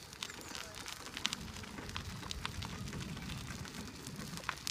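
Powered wheelchair rolling over a grit-covered dirt path: scattered, irregular crackling and crunching under the tyres over a low rumble.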